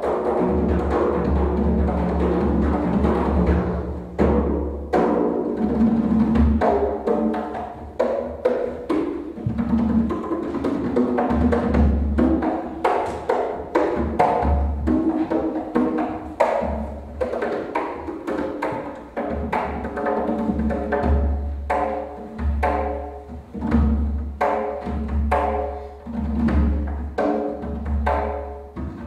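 Percussion music: drums struck in an uneven rhythm, each stroke ringing with a pitched tone.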